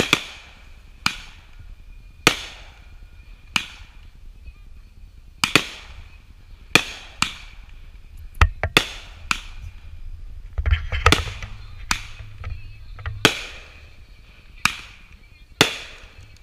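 Consumer aerial fireworks firing one after another on a single chain of fuses: sharp bangs about once a second, each with a short echoing tail, and a quick cluster of several shots a little past the middle.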